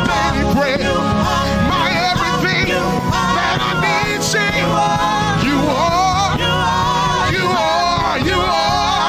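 Live gospel praise-and-worship singing: a male lead vocalist singing into a microphone with backing singers, over band accompaniment with a steady low bass.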